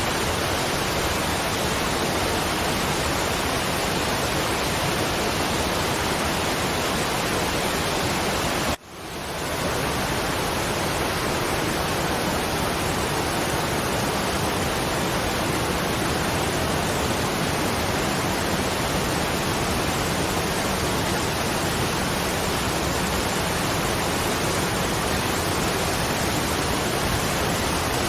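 Waterfall: a steady, even rush of falling water, which drops out for an instant about nine seconds in and swells back within a second.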